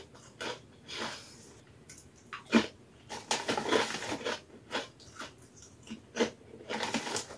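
Kettle-cooked potato chips crunching as they are chewed, in a series of short sharp crunches. About halfway through, the chip bag rustles as a hand reaches into it.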